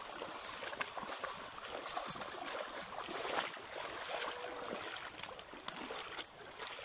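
Splashing and sloshing of feet wading through a shallow stream, an uneven run of short splashes over rushing water noise.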